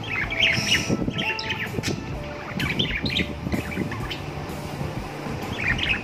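Pet budgerigars chirping and chattering in several short spells of quick, high notes.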